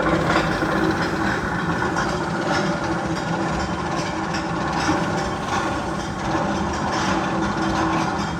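Steady train-like rumble and clatter on rails, with a low hum and faint repeated clacks, in the Magnum XL 200 roller coaster's tunnel.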